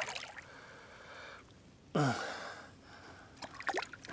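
A man's strained gasp or grunt about two seconds in, falling in pitch. He is straining as he leans over the side of the boat to reach a hooked smallmouth bass. A few short faint squeaks follow near the end.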